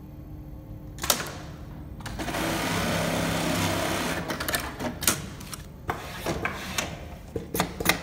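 Automatic velcro sewing workstation, an industrial pattern sewing machine with a built-in velcro cutter, at work. A sharp clack about a second in is followed by about two seconds of steady fast stitching, then a run of irregular mechanical clicks and clacks.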